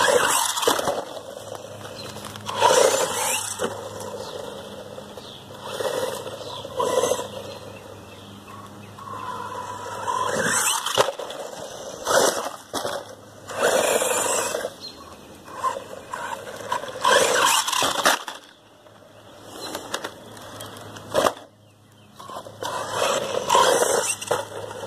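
Small electric 1/12-scale two-wheel-drive RC truck driven in repeated short bursts, each a second or so long: its motor whirs and its tyres scrabble and skid on dirt and gravel.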